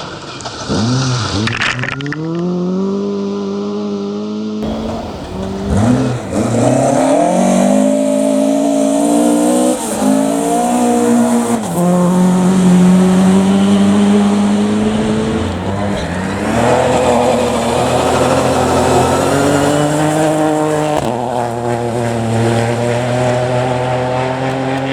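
Rally cars driven hard on a stage, engines rising in pitch and dropping sharply again with each gear change. The sound changes abruptly twice.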